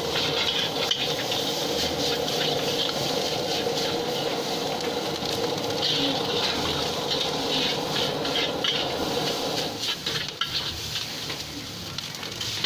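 Nasi goreng frying in a wok: steady sizzling while a metal spatula scrapes and knocks against the pan. Under it runs a steady hum that stops about ten seconds in.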